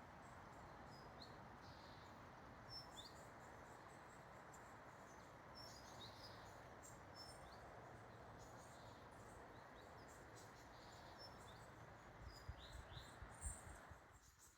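Faint, short high chirps of small birds over a steady rushing background, which cuts off suddenly near the end. A few soft low thumps come just before the cutoff.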